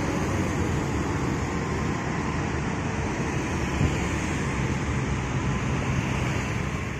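Steady roadside traffic noise: the low engine rumble of a Mercedes-Benz OH-chassis intercity coach moving away down the road, with other vehicles on the road.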